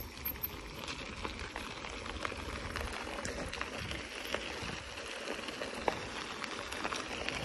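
Mountain bike tyres rolling over a gravel path: a steady crunching hiss with scattered small clicks of grit and stones.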